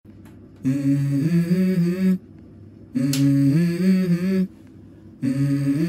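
Background music intro: a voice humming the same short melodic phrase three times, each about a second and a half long and stepping up in pitch, with short gaps between.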